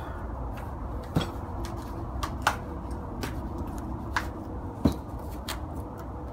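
A cardboard mailer being handled: scattered sharp taps and scrapes as it is turned over and its pull tab is picked at through a plastic shipping pouch, over a steady low rumble.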